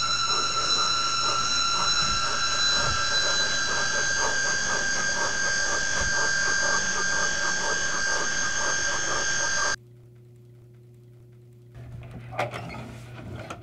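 A loud drone of several steady high ringing tones over a rapid, even pulsing, cut off suddenly about ten seconds in. A low hum is left, with a click near the end.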